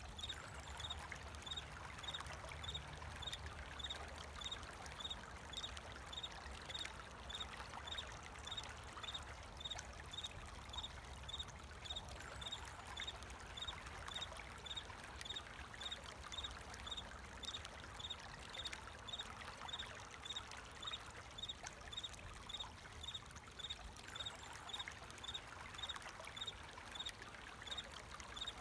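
Flowing water trickling steadily, with a cricket chirping in a high, even rhythm over it.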